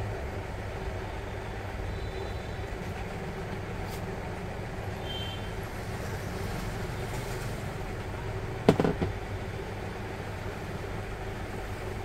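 Steady low background rumble, with one sharp knock and a short ringing tail about two thirds of the way through as the heavy ceiling-fan motor body is set down on the table.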